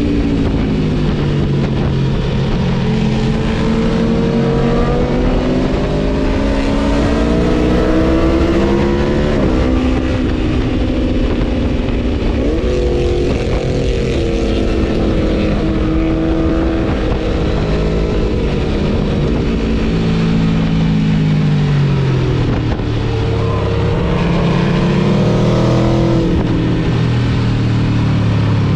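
Aprilia Tuono V4 motorcycle engine with a Gabro Stage 3 tune, pulling hard through the gears. Its pitch climbs under throttle and drops sharply at each shift, and it winds down and picks up again a little past two-thirds of the way through. A steady rush of wind noise runs underneath.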